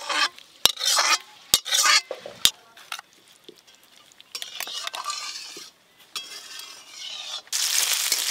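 Metal spatula scraping and clinking against a steel wok and bowl as chunks of cooked curry are scooped out, with several sharp clicks in the first few seconds. Near the end, a loud sizzle of shallots frying in hot oil in the wok.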